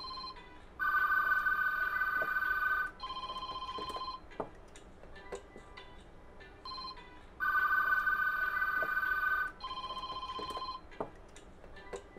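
Red analog desk phones (2500-type sets) and two cell phones ringing at once in a repeating cadence: a warbling ring of about two seconds, then a shorter, lower ring, with the cycle coming round again about six seconds later. A few light clicks are heard near the end.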